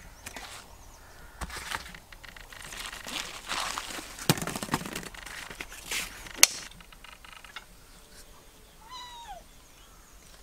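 Rustling and handling noise with sharp knocks, the sharpest about six and a half seconds in, then a single short animal call that falls in pitch about nine seconds in.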